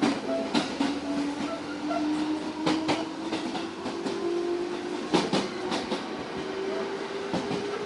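Traction motor whine of a JR 205 series electric train heard from inside the motor car, a single tone rising slowly in pitch as the train accelerates. Wheels clack over rail joints several times, some in quick pairs. This is the motor sound of a train type being phased out of service.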